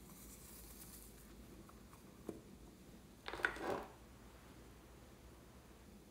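Plastic slime containers being handled on a tabletop: a faint hiss early, a light click a little past two seconds, then a short plastic clatter about three and a half seconds in, the loudest sound, as a container is put down and another picked up.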